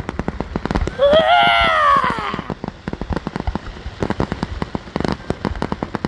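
Fireworks crackling in a dense stream of rapid sharp pops, like sizzling bacon. About a second in, a loud drawn-out call rises and then falls in pitch for about a second and a half.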